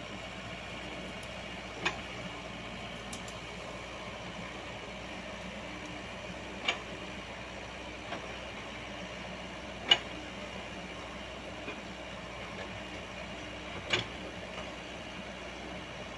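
Komatsu PC78US mini excavator's diesel engine running steadily while it digs into a cut bank, with four sharp knocks a few seconds apart from the bucket and arm working the bank.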